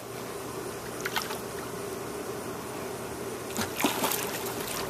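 Pool water splashing and lapping as a golden retriever paddles out of its floating ring and swims, with small splashes about a second in and a cluster of them near the end.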